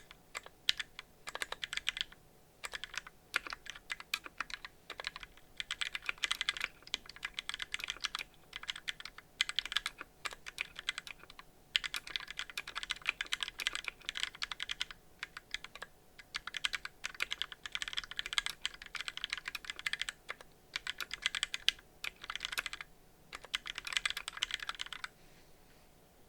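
Typing in bursts on a 60% mechanical keyboard with lubed Gateron Yellow linear switches on a brass plate and DCS keycaps: quick runs of key clacks broken by short pauses, stopping shortly before the end.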